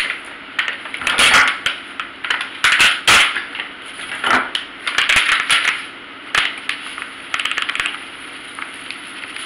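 Plastic seasoning packet crinkling and rustling in irregular bursts, with a few sharp clicks, as it is handled and opened. Near the end the dry seafood boil seasoning is poured from it into a plastic cooking bag.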